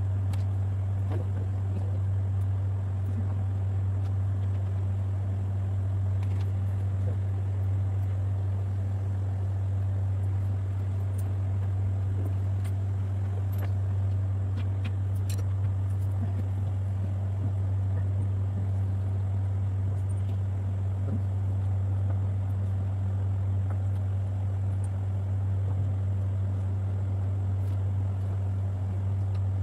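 A steady low hum at an even level, like a running motor or fan, with a few faint clicks in the middle.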